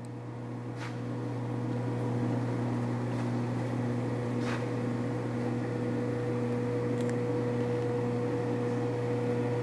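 Steady machine hum made of a low drone and a higher, thin tone. It grows a little louder over the first two seconds, then holds even, with a few faint clicks.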